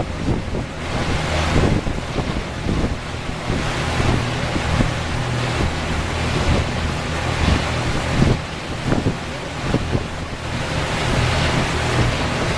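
Heavy wind buffeting the microphone over rushing water, with a steady low engine drone underneath, as from a motorboat under way on a lake.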